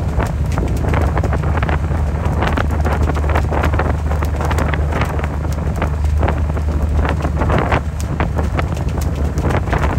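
Wind buffeting the microphone: a heavy, steady low rumble with irregular crackling gusts.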